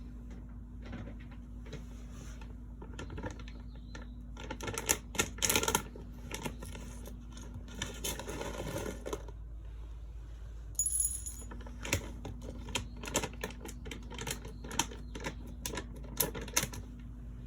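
A run of irregular clicks and taps, loudest and densest a third of the way through, with a brief high squeak about eleven seconds in.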